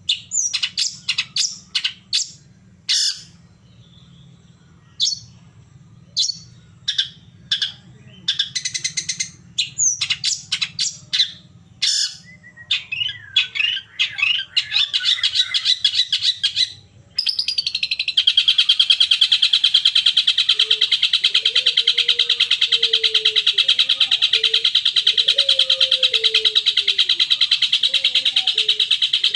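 Long-tailed shrike lure recording. For the first half there are sharp chirps and call notes in quick bursts with short gaps. About halfway through it cuts abruptly to a continuous fast high trill with a lower wavering tone underneath.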